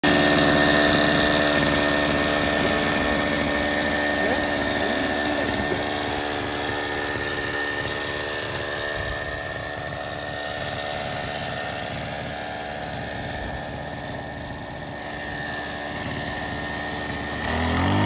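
Small two-stroke brush cutter engine running steadily. It fades through the middle and grows louder again near the end.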